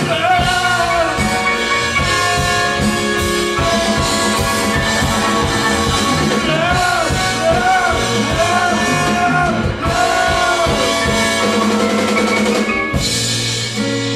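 Band music from a musical-theatre song, with a drum kit keeping the beat. In the middle a short melodic phrase rises and falls several times in a row.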